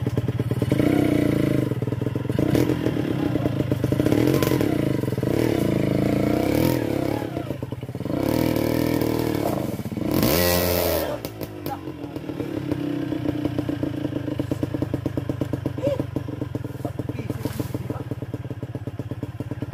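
Dirt bike engine running on a trail ride, the revs rising and easing off again and again. About ten seconds in it revs hard in a loud burst, then the pitch drops away steeply.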